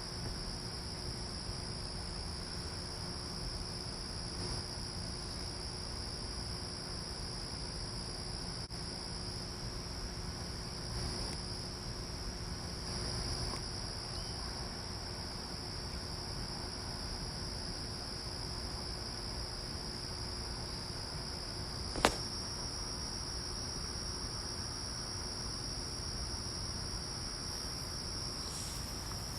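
Steady, high-pitched chorus of insects such as crickets, with one sharp click about three-quarters of the way through.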